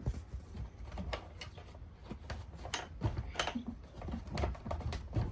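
Scattered light clicks and knocks of plastic vacuum parts being handled as filters are seated in a Shark vacuum's dust canister.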